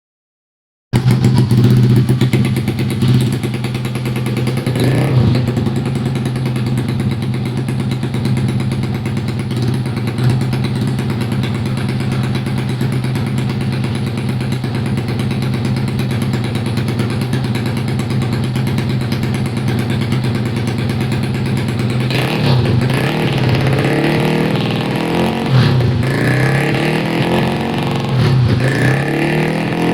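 Yamaha Jupiter MP2 underbone motorcycle's four-stroke engine running steadily while being warmed up, starting about a second in. From about 22 seconds in its pitch rises and falls unevenly as the throttle is worked.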